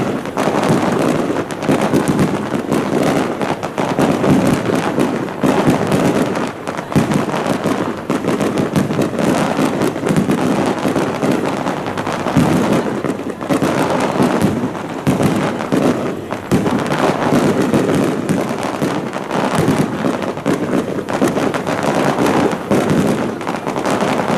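Aerial firework shells bursting in a rapid, continuous barrage, many bangs a second overlapping into one unbroken crackling rumble.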